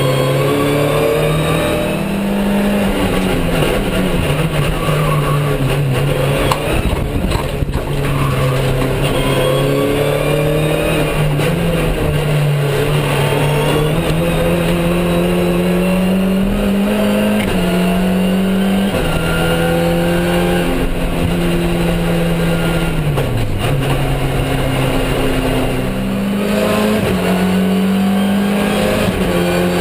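Nissan Tiida race car's engine heard from inside the cabin at racing speed. Its pitch repeatedly climbs and then drops back at gear changes and under braking.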